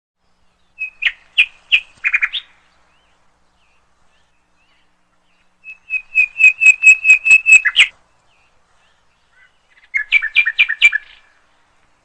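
A bird chirping in three short bursts of quick, evenly repeated high notes, each burst one to two seconds long.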